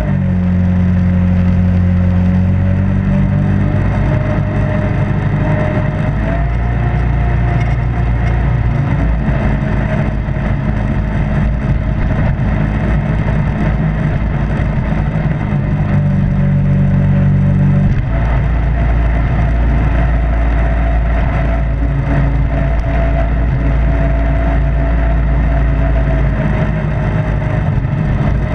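Jet boat running fast on a river: a steady engine drone with a whine that drifts up and down in pitch, over the rush of water and spray.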